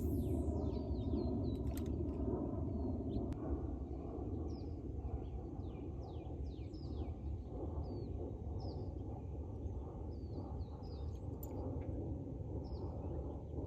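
Small birds chirping and calling, many short quick notes sliding up and down, over a steady low rumble.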